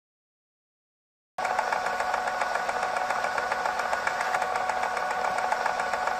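Silence, then about a second and a half in a steady machine-like buzzing starts suddenly and keeps on, dense and rapidly fluttering, with a steady whining tone running through it. It is a sound effect laid under an animated logo.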